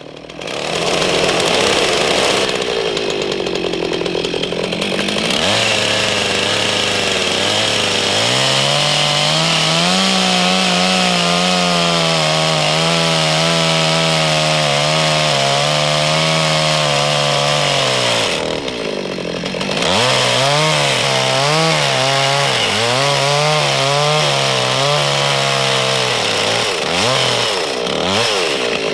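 Two-stroke gasoline chainsaw cutting into a log, running near full throttle with its pitch sagging and wavering as the chain bites. The revs drop back twice, a few seconds in and about two-thirds of the way through, between cuts.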